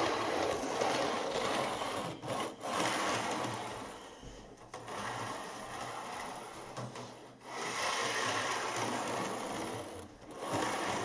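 Model railway rolling stock running along the track: a steady rumbling whir of small wheels on the rails, with brief dips about every two to three seconds.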